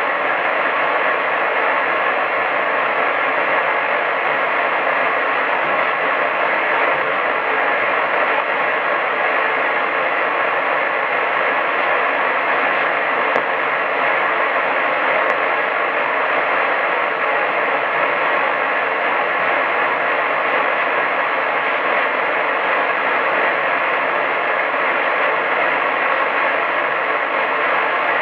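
Medium-wave AM radio reception: a steady band of static hiss, cut off above about 4 kHz, with faint steady tones mixed into it.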